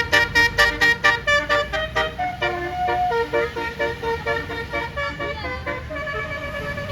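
Tour bus's multi-tone Basuri 'telolet' air horn playing a melody: quick short notes, about five a second, for the first two seconds, then longer held notes and a brief sliding note, with a low engine rumble underneath.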